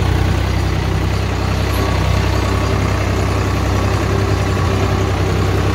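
Swaraj 855 tractor's three-cylinder diesel engine running steadily, heard close up from the driver's seat.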